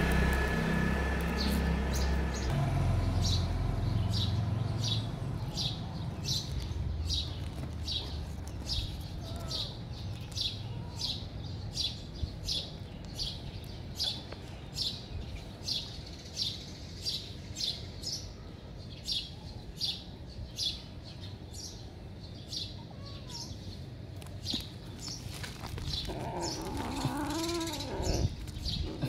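A small bird chirps over and over, one or two short high chirps a second. Near the end a kitten gives several meows.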